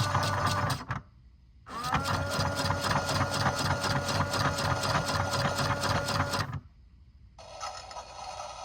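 Washing machine motor running with a fast, even rattle, stopping abruptly twice. On restarting it gives a short rising whine as it gets up to speed, then runs steadily. After the second stop a quieter steady hum takes over.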